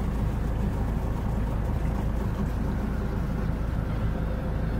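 A boat's engine running steadily at slow speed: an even, low rumble with a faint steady hum over it.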